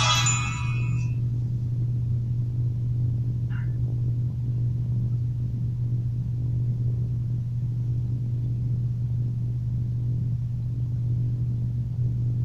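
Steady low hum with nothing else over it, and one faint short blip about three and a half seconds in.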